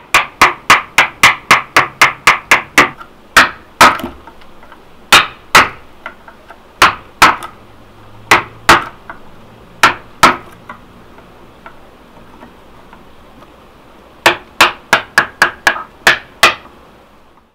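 Mallet striking a carving chisel into a wooden sculpture: a quick run of sharp knocks, about four or five a second, then slower strikes in pairs, then another quick run near the end.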